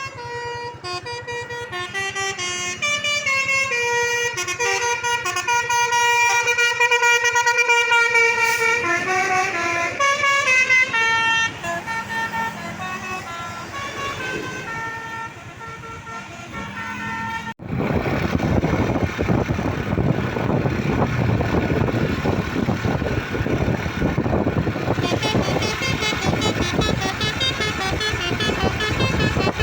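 Basuri 'telolet' musical air horns on a bus sounding a stepped, tune-like run of several notes, sounding together, then dying away. About two-thirds through the sound cuts off suddenly into a loud, steady noise of vehicles, with faint horn notes again near the end.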